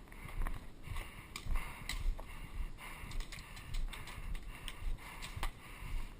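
Footsteps of a player walking at an even pace, a thump about every half second, with short clicks and rattles from gear in between.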